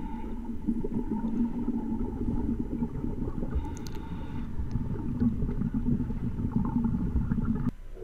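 Underwater sound picked up by a camera in its waterproof housing: a steady low rumble with a faint hum running through it, cutting off suddenly near the end.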